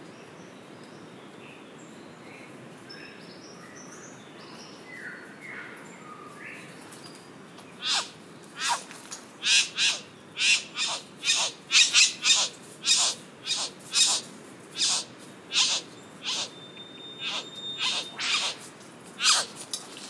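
Male satin bowerbird calling at his bower as a female arrives: after a few faint chirps, a run of loud, short, sharp calls starts about eight seconds in, one or two a second, each falling in pitch.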